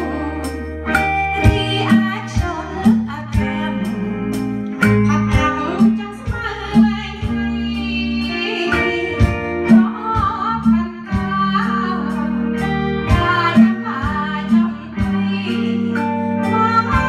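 A Khmer oldies song played live: a woman sings into a microphone over electric guitars and an electronic drum kit keeping a steady beat.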